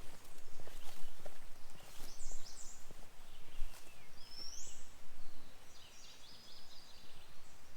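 Songbirds calling in a forest: a few short high chirps, a rising whistle and a quick series of notes, over the crunch of footsteps on the trail in the first few seconds.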